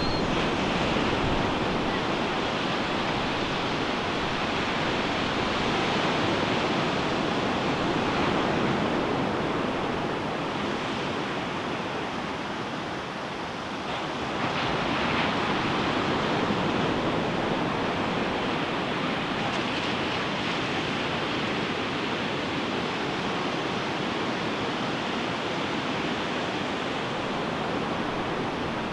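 Ocean surf breaking on a sandy beach: a continuous wash of waves that swells and eases, with a brief lull a little before halfway before the next wave builds. Some wind noise on the microphone.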